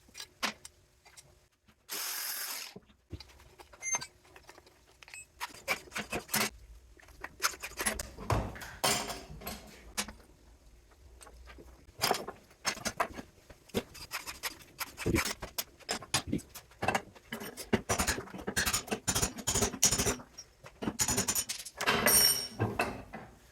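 Small metal parts clinking, knocking and scraping as the insides of a brass fitting are taken out by hand, with a short hiss about two seconds in.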